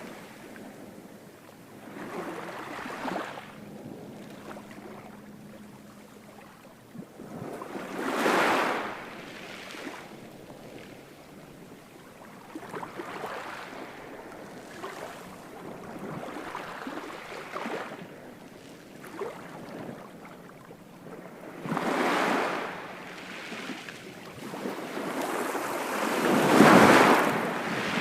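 Ocean waves breaking and washing ashore, the surf swelling and falling back every few seconds, with the biggest wave near the end.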